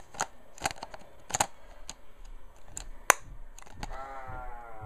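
Scattered sharp clicks and knocks of an 18–55 mm zoom lens being fumbled against a Canon EOS Rebel T3i's lens mount, not yet seated; the sharpest click comes about three seconds in. Near the end comes a short hum with a slight rise in pitch.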